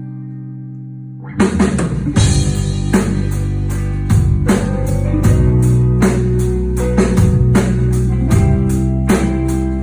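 Rock band music: a held low chord fades out, then about a second in the drum kit, bass and guitars come in together and play on with a steady beat.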